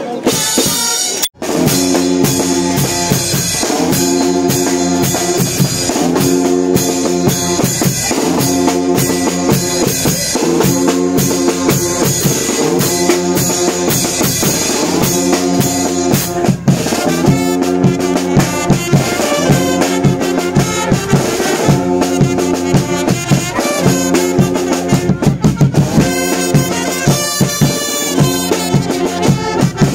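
Brass band playing a lively tune on trumpets and trombones, with bass drum, snare and cymbals keeping a steady beat. The sound drops out very briefly about a second in.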